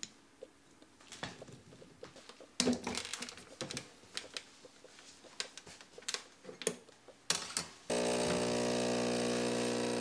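Clicks and knocks of ground coffee being tamped and the portafilter handled. About eight seconds in, the pump of a Breville Barista Pro espresso machine starts and hums steadily as the shot is pulled.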